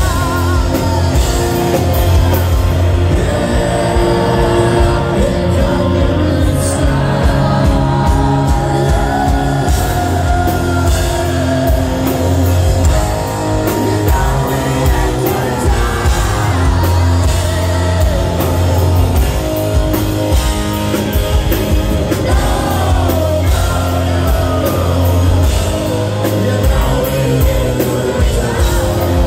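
Live rock band playing a heavy, slow song: distorted electric guitars, bass and drums, with a man singing in stretches, heard loud from close to the stage.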